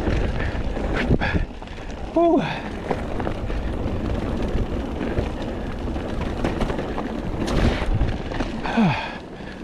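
Wind buffeting the microphone and a mountain bike rolling fast down a dirt trail, the bike clattering, with a couple of sharper knocks over bumps.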